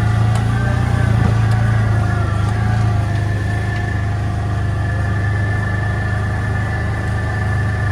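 A vehicle engine running steadily at an even low speed, with a steady high whine above its hum.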